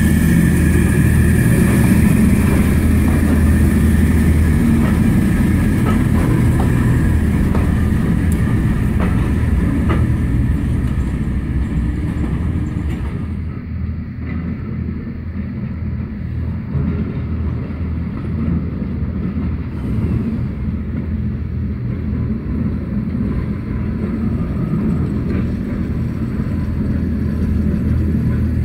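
Class 09 diesel shunter's English Electric six-cylinder engine running as the locomotive moves a Pullman coach along the line, a steady low drone. It is loudest at first, drops back about halfway through and builds again near the end.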